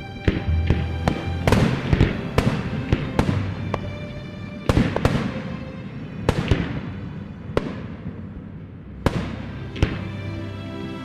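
Fireworks going off: repeated sharp bangs, some in quick pairs, each trailing off in a fading rumble, with a short lull shortly before the end. Music with sustained notes plays underneath.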